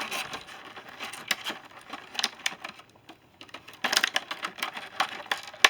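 Small hard parts of a soldering iron kit and its case being handled and fitted together by hand: a run of light clicks and rattles, busiest in the first second and again about four seconds in.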